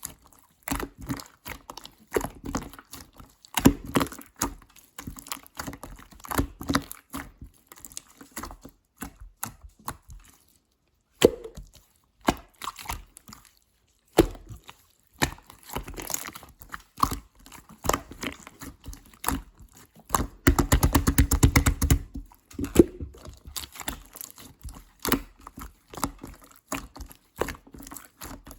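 Clear slime being squished, folded and stretched by hand, giving wet clicking and popping as trapped air bursts. About twenty seconds in, a rapid run of crackling pops lasts a couple of seconds.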